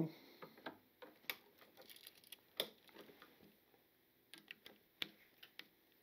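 Faint, scattered clicks and light taps of a screwdriver and wire at a three-way switch's ground screw, as the hooked end of the ground wire is fitted onto the terminal and the screw is turned.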